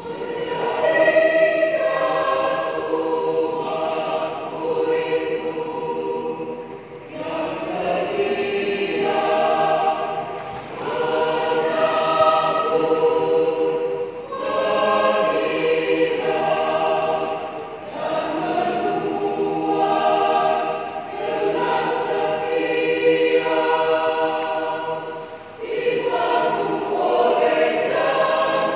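Choir singing in several voice parts, phrases held for a few seconds with short breaks between them.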